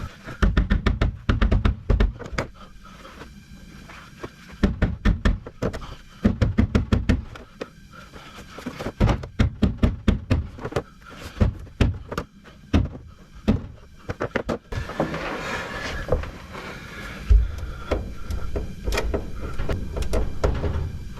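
Music with many sharp knocks and thunks packed close together and at irregular intervals; from about fifteen seconds in it gives way to a steadier hiss with a few knocks.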